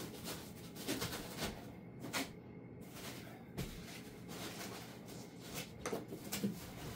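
A box being handled and put away: scattered knocks, bumps and rustles.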